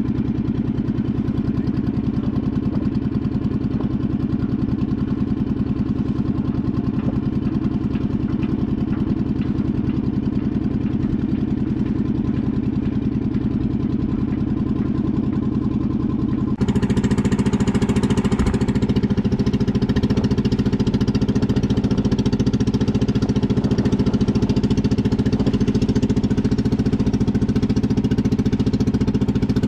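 Small boat's engine running steadily at cruising speed. A little over halfway through, the sound abruptly gets louder and brighter, then runs on unchanged.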